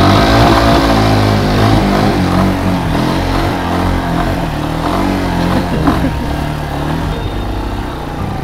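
Racer Ranger RC300-GY8 motorcycle engine revving as the bike rides off through deep mud, its pitch rising and falling with the throttle. It grows fainter as it moves away.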